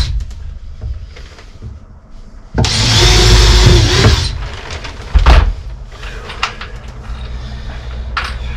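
Cordless drill driving a screw into wood in one burst of about a second and a half, its motor whine dipping and rising, followed by a single loud knock a couple of seconds later.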